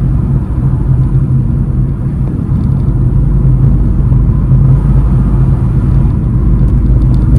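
Car driving along a road, heard from inside the cabin: a steady low drone of engine and tyre rumble.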